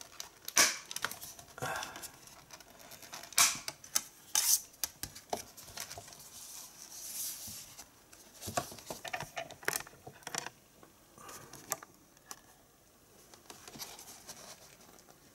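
Clicks and taps of a Blu-ray digipak being handled: its clear plastic disc trays and card panels opened, turned over and set down. Scattered sharp clicks come mostly in the first half, with quieter rustling after.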